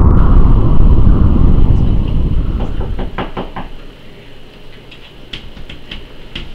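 A loud low rumbling whoosh fades out over the first three seconds. Then comes a quick series of about five knocks on a door, followed near the end by a few lighter taps.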